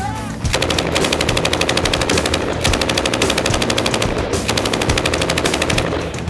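Automatic gunfire: an automatic weapon firing long bursts of rapid shots, starting about half a second in, with two short breaks between bursts.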